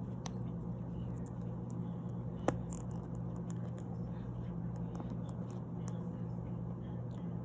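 A few faint clicks and handling noises of a small plastic figure being pushed onto its plastic stand, with one sharper click about two and a half seconds in, over a steady low hum.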